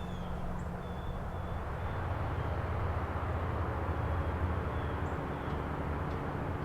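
Low, steady drone of a distant engine.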